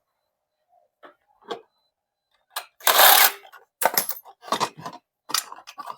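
Metal tools and parts clinking and knocking: a few light clicks, then one short loud rush of noise about three seconds in, followed by a quick run of clanks.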